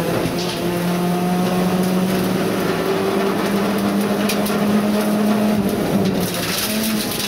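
Rally car engine heard from inside the cabin, running hard at a steady high pitch over constant tyre and road noise. About six seconds in the pitch dips, then climbs again.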